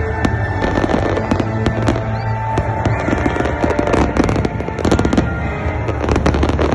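Fireworks display: a rapid, irregular barrage of bangs and crackles, packed densest around the fifth second and again near the end.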